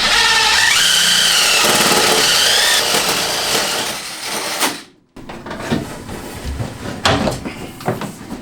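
Handheld power tool motor running loud under load for about four and a half seconds, its pitch wavering and rising, then cutting off. A string of knocks and clatter follows.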